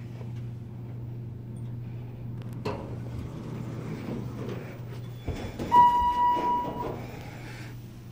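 Passenger elevator: a single electronic chime tone held for about a second, a little past halfway, just after a thump from the car, over a steady low hum; a click about a third of the way in.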